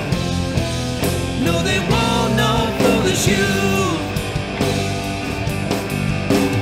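Background rock music with guitar and a singing voice over a steady beat.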